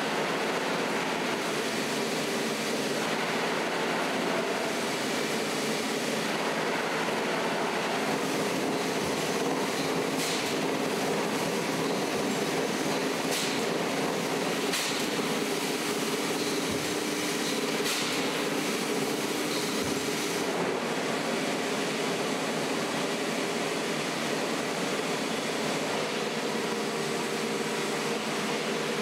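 Industrial machinery running with a steady mechanical din, with a few sharp clicks in the middle.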